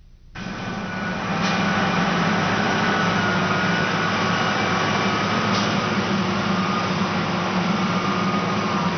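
Loaded off-road haul truck's diesel engine running steadily under load on a grade, a strong low drone that starts abruptly a moment in.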